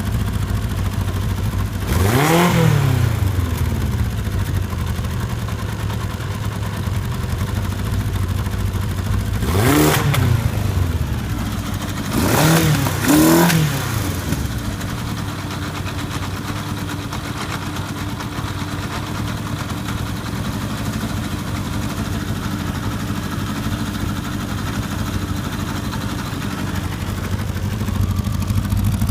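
An engine idling steadily, revved up briefly four times: once about two seconds in, once near ten seconds, then twice in quick succession, each rev rising and dropping straight back to idle.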